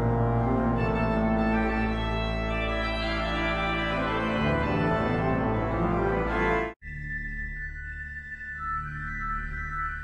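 Large pipe organ playing a loud, full passage of held chords over deep pedal notes. About seven seconds in it cuts off abruptly, and a quiet passage of a few sustained high notes over a low pedal tone begins: the start of the next piece.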